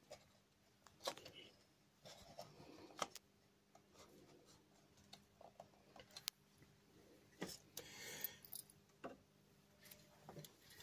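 Near silence with faint, scattered clicks and soft rubbing as fingers twist a stripped wire end and wrap it around a terminal contact.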